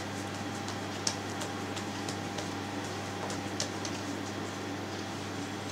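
A steady low hum, with a few faint soft taps as hands press and pat a round of yeast dough flat on a floured board.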